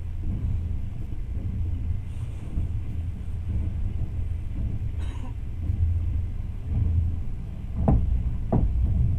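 Steady low rumble of a moving train heard from inside the carriage, with two sharp knocks near the end.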